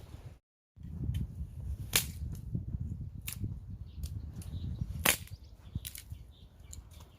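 Low, steady rustling with a few sharp cracks or snaps on top, the loudest about two seconds and five seconds in. A split second of dead silence comes just after the start.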